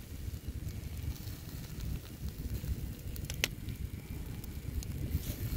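Wood fire burning in an open fire pit, crackling, with a few sharp pops in the middle (the loudest about three and a half seconds in), over a steady low rumble.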